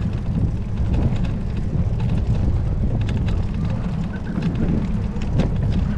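Wind buffeting the microphone on a moving bicycle: a steady low rumble, with faint clicks and rattles over it.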